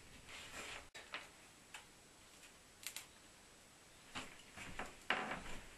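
Faint, irregular clicks and short rustles of hands handling wires and a capacitor being fitted across an LED floodlight's driver circuit. There is a double click about three seconds in, and louder rustling near the end.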